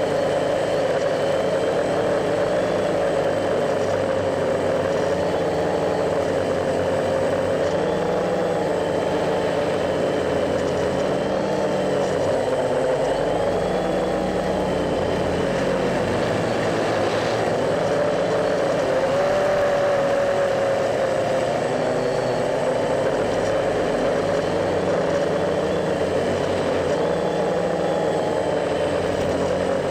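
A hexacopter's electric motors and propellers buzzing steadily in flight, the pitch of the whine wavering up and down.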